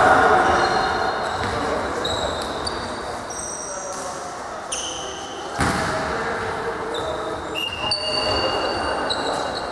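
Shoes squeaking on a sports-hall court floor during volleyball play, with a sharp slap of the ball about five and a half seconds in, over voices in a large echoing hall.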